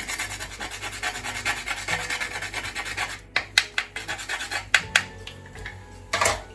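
Whole nutmeg rubbed on a small nutmeg grater: quick rasping strokes for about three seconds, followed by several sharp clicks and a louder knock near the end.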